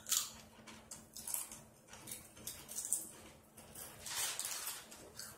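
Two people crunching and chewing Doritos tortilla chips with closed mouths: irregular crisp crunches throughout, with a longer stretch of crunching about four seconds in.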